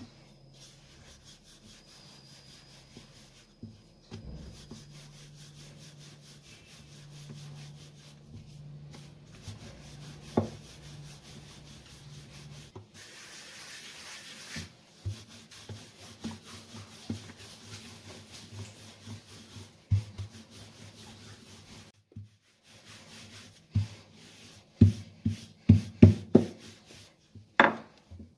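Paratha dough being pressed and rolled out with a wooden rolling pin on a floured stone counter: faint rubbing at first, then a run of soft knocks that grows louder in the last few seconds, with one sharper knock near the end.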